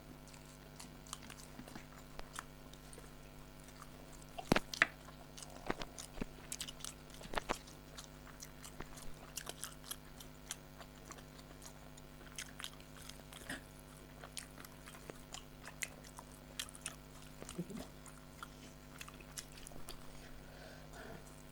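People eating rice and spicy chicken curry: scattered soft chewing and mouth sounds with small irregular clicks, over a steady low hum.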